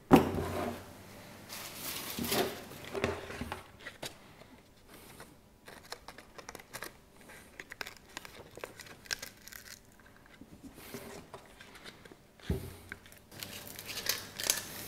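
Paper rustling and crinkling with scattered small clicks and knocks: a sanding sheet being handled and clamped onto an orbital sander's base.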